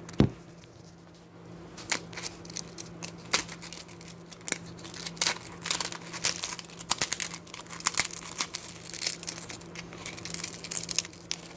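An ice cream cone being crushed and broken up by hand: a dense run of irregular crisp crackles and snaps, after a single thump at the very start. A low steady hum runs underneath.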